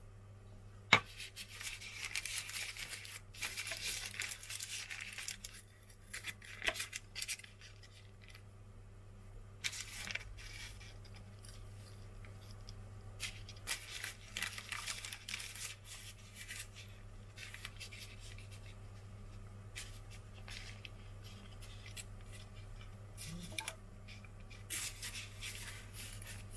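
Baking paper rustling and crinkling in short, irregular bursts as hands fold and pinch puff pastry parcels on it, with one sharp click about a second in.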